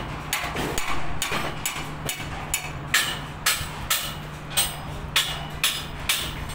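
Hammer blows on the steel of a tower crane's collar frame, about two a second with a metallic ring, over a steady low hum.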